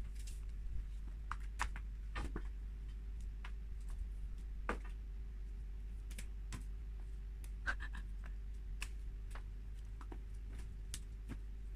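Faint, scattered light clicks and taps at irregular intervals over a low steady hum: a Korat cat moving about and nosing at a plate and container on a glass-topped table.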